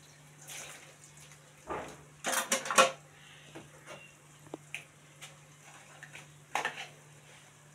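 Dishes being washed by hand in a stainless steel sink. Bowls clatter and knock against each other and the sink, with a loud burst of clatter about two seconds in, a few small clinks, and another clatter near the end.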